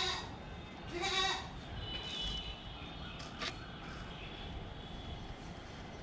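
Two short animal calls, each rising in pitch, one at the start and one about a second in. Faint high chirps and a single click follow.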